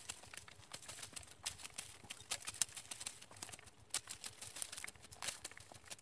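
Garden hoe chopping and scraping into soil in quick, irregular strokes, the footage sped up: a dense run of sharp knocks and scrapes.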